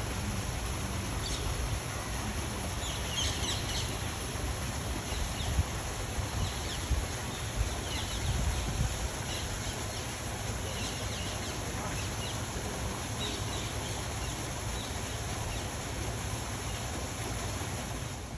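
Steady rush of a small waterfall splashing onto rocks, with short, high bird chirps now and then, most of them in the first half.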